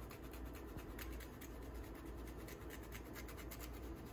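Asparagus sautéing in oil in a frying pan, sizzling with a dense, steady crackle.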